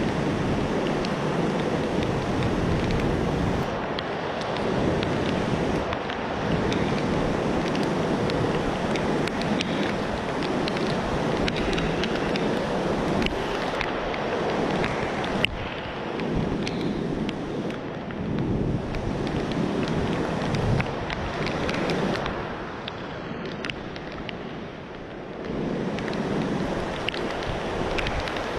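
Storm wind gusting against the microphone: a steady rushing noise that swells and eases, dropping back briefly about three quarters of the way through.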